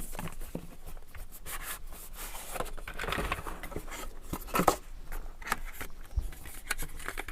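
Seal on a smartphone's retail box being broken open, with rustling of packaging and scattered light clicks and knocks as the box is handled.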